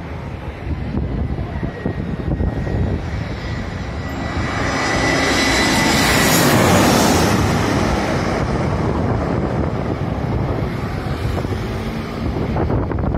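Jet airliner passing overhead, its engine noise swelling to a peak about halfway through and then easing off, with a thin high whine that cuts out at the loudest point. Gusty wind buffets the microphone throughout.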